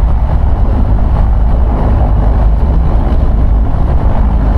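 Piper PA-28 Archer's four-cylinder piston engine and propeller running with a steady, loud low drone.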